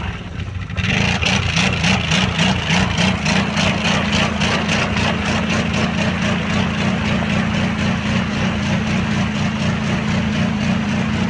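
Arctic Cat 1000 ATV engine running steadily with a deep, even hum, briefly dropping in level during the first second before picking back up.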